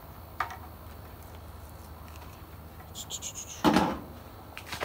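Handling noises from opening a carded plastic blister pack of carburettor idle screws: a sharp click, then a brief high squeak and a louder knock-like rustle nearly four seconds in, followed by a few light clicks.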